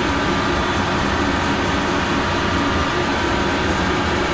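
Milling machine running on its own with the spindle at about 700 RPM, while being run in: a steady whine of several tones over a low rumble, even and unchanging.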